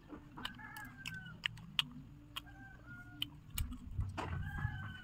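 An animal's drawn-out calls, three of them, each held for about half a second, with scattered light clicks and taps.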